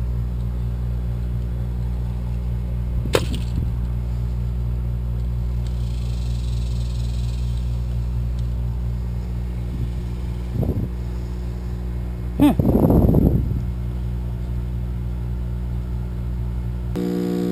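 A steady low mechanical hum, with a sharp click about three seconds in, a knock later, and a short clatter about two-thirds of the way through; the hum changes pitch just before the end.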